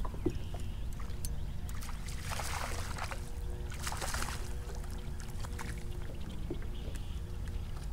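Water splashing and lapping against a kayak, with a couple of louder splashy stretches about two and four seconds in, over a steady low rumble.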